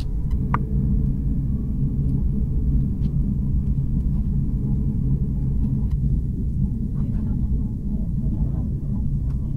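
Steady low rumble inside the carriage of the Jakarta–Bandung high-speed train running on the line.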